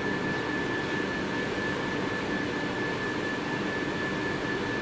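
Steady background hum and hiss from ventilation or machinery, with a thin, steady high-pitched whine running through it.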